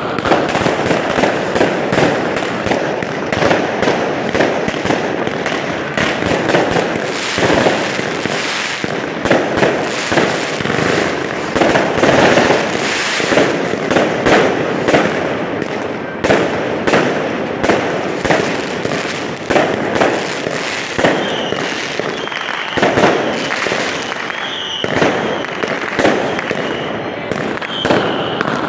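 Fireworks going off without pause: overlapping bangs and crackles from aerial shells and rockets launched from the street. A thin high whistle comes and goes in the last several seconds.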